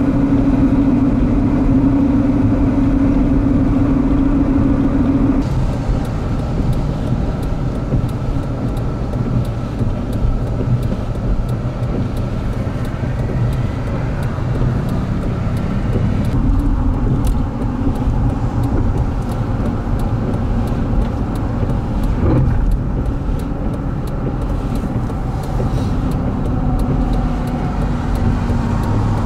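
Steady vehicle road noise on a wet, icy highway: low engine and tyre rumble, with a steady hum that stops about five seconds in. The sound shifts abruptly again around sixteen seconds in, and faint ticks run through the later part.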